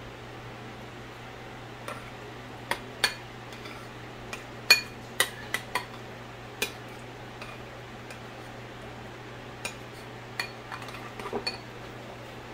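A metal spoon stirring mayonnaise and mustard in a bowl, clinking against the side in irregular taps, most of them between about two and six seconds in. A kitchen fan hums steadily underneath.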